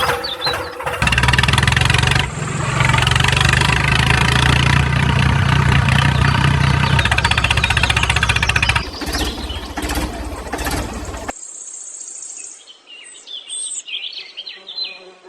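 An engine running steadily and loudly, cutting off suddenly about eleven seconds in, after which birds chirp.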